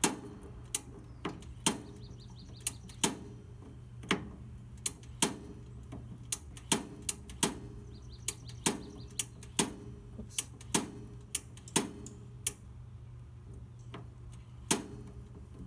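The matchless spark igniter of a Camp Chef Deluxe Outdoor Oven's propane stove burner, clicking again and again as the right burner is being lit. There are about twenty sharp snaps, often in quick pairs, with the gas on and the burner not yet catching.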